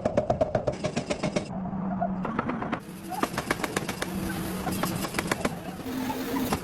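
Rapid mechanical hammering on metal, about eight blows a second, in two runs with a short break between, over a steady low machine hum.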